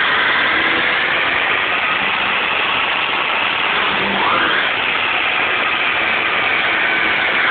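Volkswagen Polo 6N's 1.0-litre four-cylinder petrol engine held at high revs during a burnout, the front tyres spinning on the spot and squealing. The pitch climbs sharply about halfway through, then holds steady.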